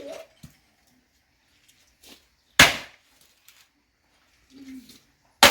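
Firewood being chopped: two sharp, hard wooden blows about three seconds apart.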